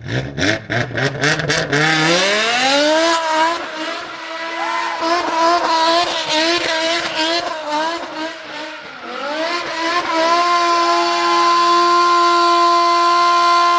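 BMW E60 M5's S85 5.0-litre naturally aspirated V10 revving. After a choppy start the revs climb over a couple of seconds and waver near the top. They dip briefly, then climb again and are held high and steady for about four seconds before falling off at the end.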